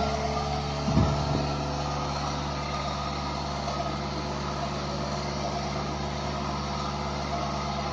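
A milking machine's electric vacuum pump running with a steady hum, with a single knock about a second in.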